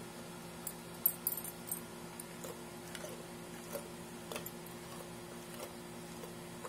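Mastiff puppy chewing a piece of raw tilapia: scattered small wet clicks and crunches, with a brief jingle of the metal tags on its collar about a second in.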